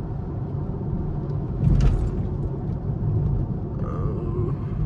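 Chevrolet Camaro SS's 6.2-litre V8 cruising, a steady low rumble heard from inside the cabin along with tyre noise on a wet road. There is a brief louder burst about two seconds in.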